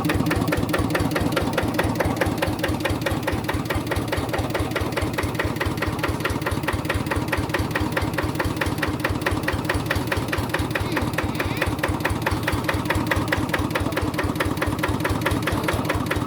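Kubota RD85 single-cylinder diesel engine of a hand tractor running steadily, its firing heard as a fast, even chugging.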